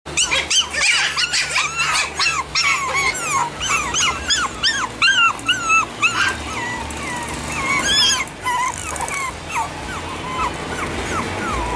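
Chihuahua puppies yipping, many short high calls that rise and fall in pitch, coming thick and fast at first and thinning out after about six seconds.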